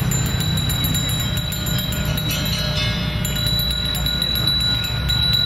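A Balinese priest's hand bell (genta) ringing steadily, a continuous high metallic ringing, over a low background rumble.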